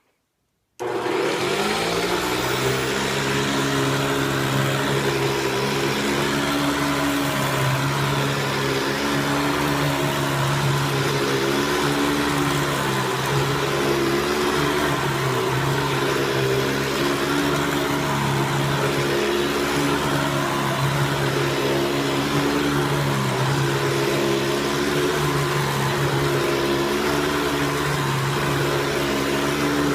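Hoover Convertible upright vacuum cleaner switched on about a second in, then running steadily as it sucks up dirt. Its motor hum dips slightly in pitch now and then.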